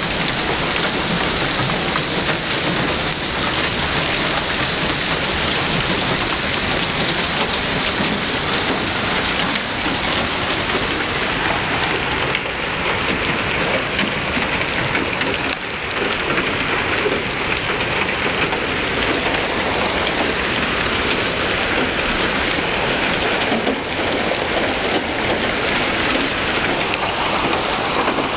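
Heavy hailstorm with rain: large hailstones and rain pelting the street and parked cars in a loud, dense, steady rush of impacts.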